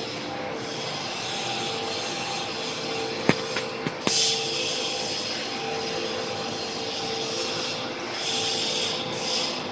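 Plastic film screw-press squeezer (dewatering machine) running steadily with a constant hum and hiss. A few sharp knocks about three to four seconds in.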